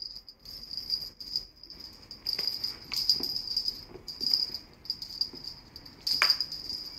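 Two small bells on a rope cat toy jingling in irregular bursts as the toy is flicked about, with a few sharp knocks, the loudest about six seconds in.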